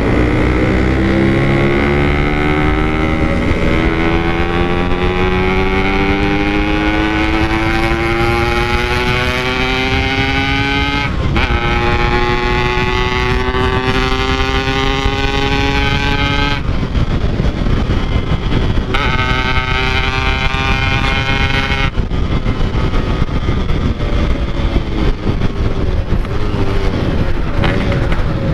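Two-stroke Yamaha RX-King engine on a Packing Power aftermarket exhaust, pulling hard through the gears under way. The pitch climbs steadily, drops at a gear change about 11 seconds in, climbs again, shifts again around 16 to 19 seconds, climbs once more, then holds more evenly near the end.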